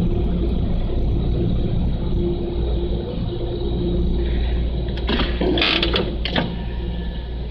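Steady low engine drone inside a car ferry's steel vehicle deck, with a short run of clattering about five seconds in.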